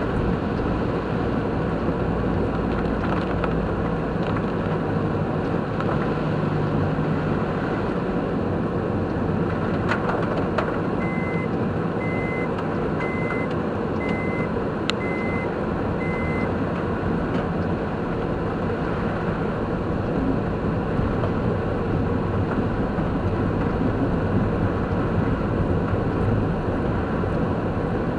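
Steady road and engine noise heard from inside a moving car. Near the middle, six short high beeps sound about a second apart.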